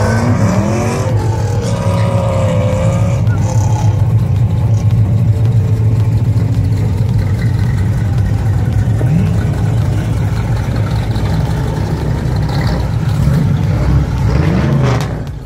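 A car engine running steadily at idle, with people talking in the background.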